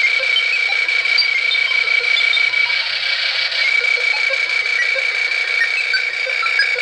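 High-frequency signal from an SM5000 electronic descaler picked up on a handheld AM radio: a steady high tone over loud hiss through the radio's small speaker, with faint scattered blips.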